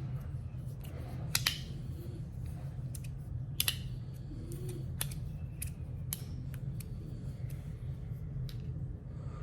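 Irregular sharp clicks and snaps from a spiral fidget slider and its slide plates as they are handled, the loudest about one and a half and three and a half seconds in, over a steady low hum.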